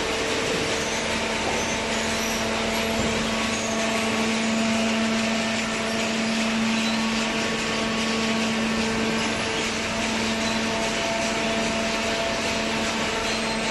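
Hydraulic paper baler machine running steadily, its motor and pump giving an even drone with a held hum; the pitch of the hum settles lower about a second in.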